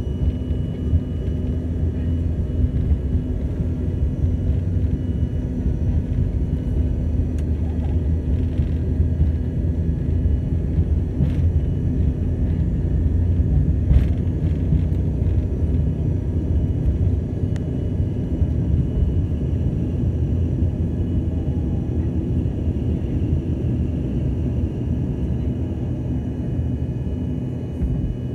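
Cabin noise of an Embraer ERJ-145 regional jet on its takeoff roll. The steady low rumble comes from its two rear-mounted Rolls-Royce AE 3007 turbofans at takeoff thrust and from the wheels on the runway, with a few faint knocks. The rumble eases slightly near the end as the jet climbs out after liftoff.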